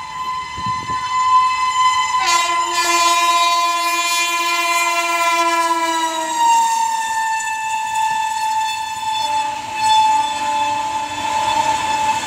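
Electric locomotive sounding its air horn in one long blast as it passes at speed. A second, lower horn tone joins about two seconds in. Both tones drop in pitch as the locomotive goes by, over the running noise of the train.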